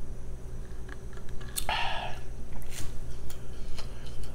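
Drinking through a straw from a stainless steel tumbler: quiet sipping and swallowing with small wet mouth clicks, and a short breathy rush about two seconds in.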